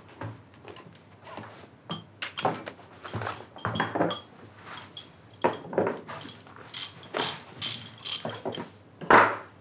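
Metal hand tools clinking and clattering as they are handled and sorted through in a tool bag: many short, ringing knocks in quick succession, with a heavier thunk near the end.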